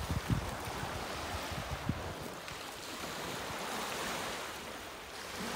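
Small sea waves washing onto the shore in a steady hiss, with wind buffeting the microphone in low gusts during the first two seconds.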